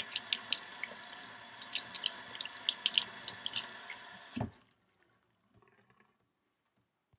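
Kitchen tap running over hands and a duck egg being washed in a stainless steel sink, with water splashing and dripping. The water stops with a thump about four and a half seconds in, and silence follows.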